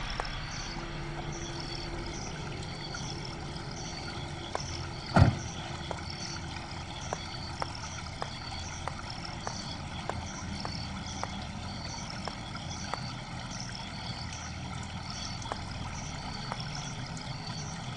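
A car door shuts with a loud thump about five seconds in. A run of sharp footsteps follows, about two a second. Under it all are a steady wash of water from a stone fountain and repeating high chirps.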